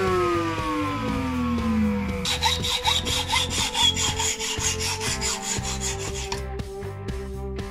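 A router spinning down after switch-off, its whine falling steadily in pitch for about two seconds. Then a hacksaw cuts a small steel pin clamped in a vise, in quick, even back-and-forth strokes that stop about six and a half seconds in.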